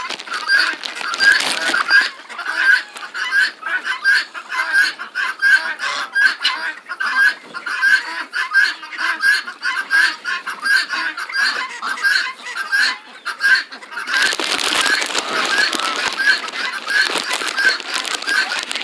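Farmyard fowl calling in a steady run of short, evenly repeated notes, about two a second. A stretch of louder rustling noise joins in for a few seconds near the end.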